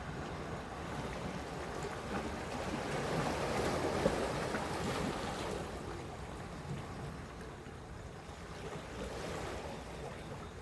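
Sea waves washing against the shore. One wave swells to its loudest about four seconds in and draws back, and a smaller one follows near the end.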